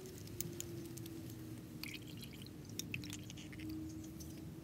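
Faint clicks from the hot lower oil screen plug of a KTM 690 engine being unscrewed by hand, with a few drips of oil falling into the drain pan.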